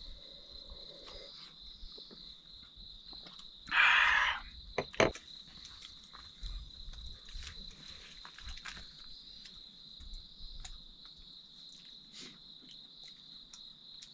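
Night insects, crickets, chirring in a steady high-pitched drone. About four seconds in there is a brief loud rush of noise, followed by two sharp knocks.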